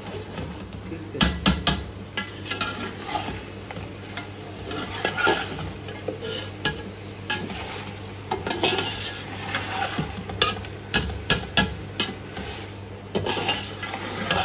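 Slotted metal spoon scraping and tapping against an aluminium pot as mutton is stir-fried in masala, over a steady sizzle: the bhuna stage of browning the meat in the spice paste. The scrapes come in bursts of quick strokes.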